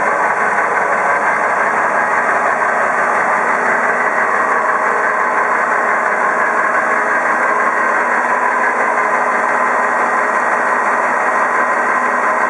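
Rosenbauer Panther airport fire truck's diesel engine idling, a steady, unchanging drone heard close up.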